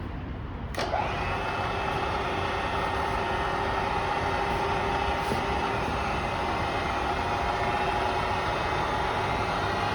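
Bridgeport Series I vertical mill spindle starting up about a second in, then running steadily at around 2200 RPM: an even mechanical whir with a few steady tones.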